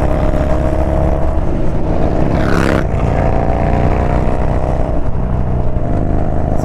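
Yamaha Bolt's air-cooled V-twin engine running under load while riding, its pitch climbing slightly over the first couple of seconds. A brief rush of noise comes about two and a half seconds in.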